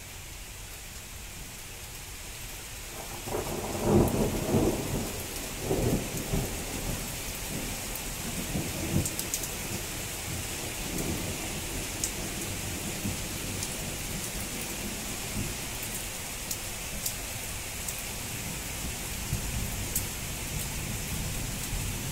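Steady rain from a thunderstorm with a peal of thunder that breaks about three seconds in, is loudest a second later, and rolls on in several weaker rumbles for some seconds before fading back under the rain.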